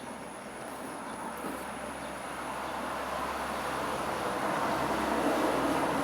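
A vehicle passing, a broad rushing noise that swells gradually and peaks near the end.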